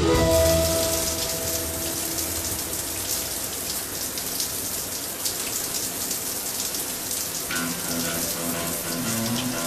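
Overhead rain shower running, a steady spray of water pouring down and splashing onto a person and the tiled floor.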